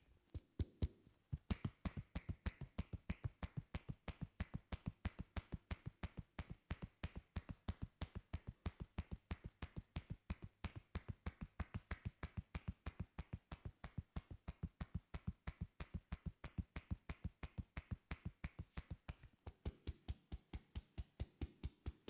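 Masseur's hands tapping and striking rhythmically on a head during an Indian head massage, a steady run of sharp slaps at about four to five a second after a few scattered strikes at the start.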